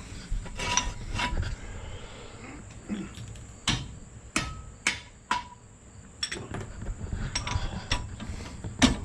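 Steel tools knocking and clinking against each other, about ten sharp, irregular strikes. Some leave a brief metallic ring, and the loudest comes near the end.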